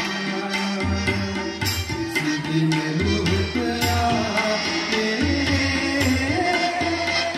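Live band music: hand drums keep a steady beat over a repeating bass line, with a harmonium-style held melody line coming in about four seconds in.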